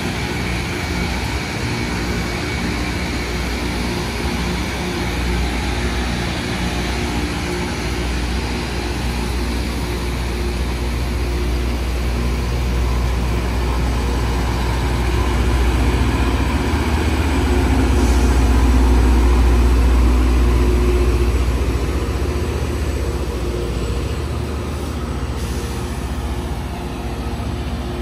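Loram rail grinder train passing close by: its diesel engines run with a steady low rumble and hum under a wide hiss of machinery. The rumble swells loudest about two-thirds of the way through, then eases as the rear cars go past.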